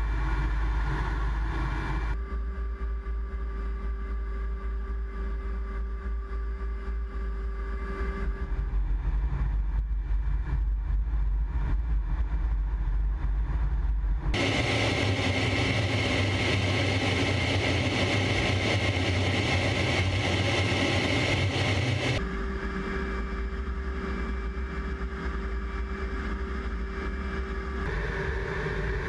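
Steady jet engine drone and rushing airflow inside a military jet's cockpit, with a steady hum. The sound shifts abruptly a few times, and a louder, hissier stretch runs through the middle.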